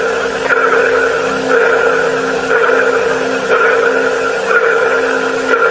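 Pulsing, sonar-like ping coming from the speaker inside Boeing's Starliner capsule, picked up by a microphone held to it and sent over the radio link: a steady hum with a tone that swells about once a second. NASA put it down to feedback in the audio system linking the station and the spacecraft.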